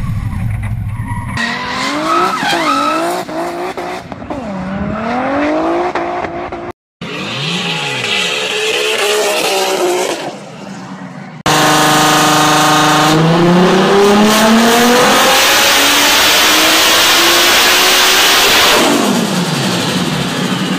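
Turbocharged BMW E30's S54 straight-six engine in a string of short clips, revving up and down through gear changes. From a little past halfway there is one long full-throttle pull, its pitch climbing in steps and then steadily under a loud rush. Near the end the revs fall away.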